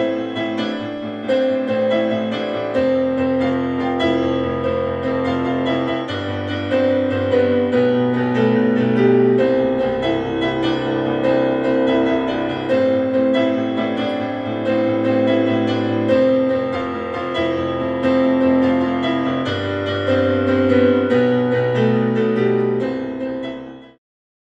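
Instrumental background music: held chords that change every few seconds over a low bass line, fading out near the end.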